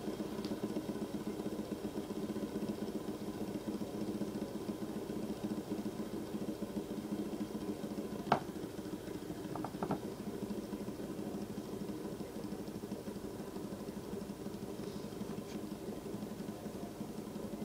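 Fidget spinner spinning flat on a wooden tabletop, giving a steady whir that slowly eases off. A single sharp click comes about eight seconds in.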